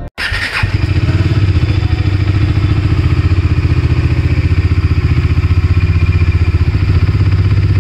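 Bajaj Dominar 250's single-cylinder engine idling steadily through its stock twin-outlet muffler: an even, rapid exhaust pulsing with no revving.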